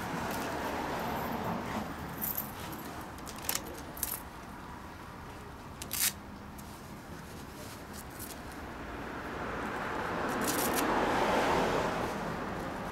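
Street traffic noise, with a car passing that swells and fades near the end. A few sharp clicks and clinks come earlier, around the parked motorcycle.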